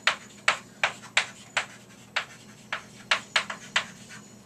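Chalk writing on a chalkboard: an irregular run of sharp taps and short scratches, two or three a second, stopping near the end.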